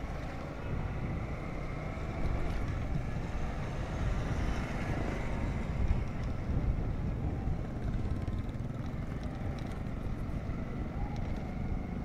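Steady engine and road noise from riding along a street in light motorcycle traffic, with a low rumble throughout.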